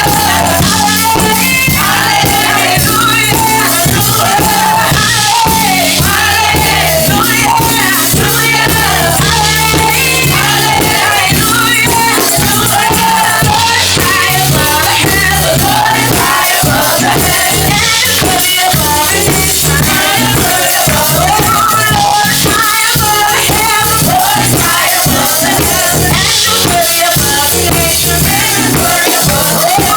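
Live gospel praise music with a steady bass line, a dense rhythmic beat with tambourine, and voices singing over it.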